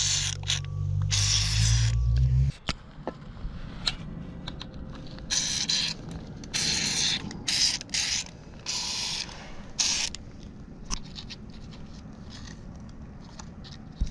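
Aerosol can of Fluid Film rust inhibitor sprayed through an extension straw into a car's rocker-panel jack hole, in about eight short hissing bursts, with the last about ten seconds in. A low hum runs under the first two and a half seconds and then stops.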